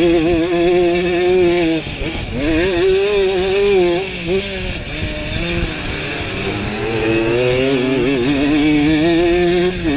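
Simson two-stroke pitbike engine racing at high revs, its pitch wavering with the throttle, dropping off about two seconds in and climbing straight back up, with a few shorter dips later on. A steady hiss of wind sits over it.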